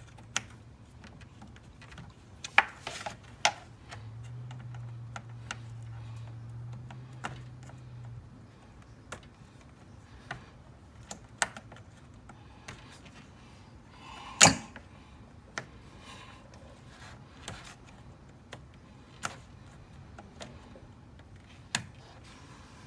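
Scattered clicks and knocks of a screwdriver and hands working plastic clips and fittings in a car's engine bay, with one sharper knock about halfway through. A low hum runs for about four seconds, starting about four seconds in.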